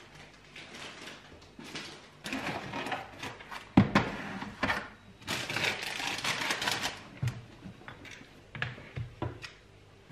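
Plastic grocery bags crinkling and a canvas tote rustling as groceries are unpacked, with light clicks of items set on a countertop and one sharp knock about four seconds in.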